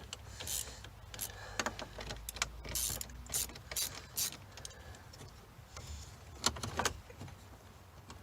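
Irregular clicks, rattles and scraping of dashboard parts being handled and worked loose by hand, in short uneven bursts.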